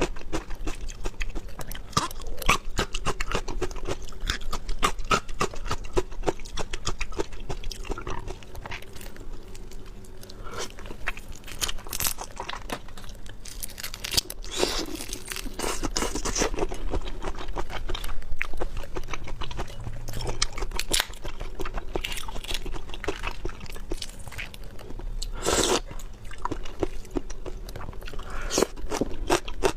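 A person chewing and crunching food in a seafood mukbang: wet chewing with a run of crisp crunches, a few louder bites about twelve, fifteen and twenty-five seconds in.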